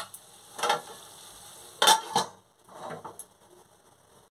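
A metal spatula knocks and scrapes around a kadai of brinjal curry, with a few separate clatters, and a stainless steel lid is set down on the pan. A faint sizzle runs between the knocks.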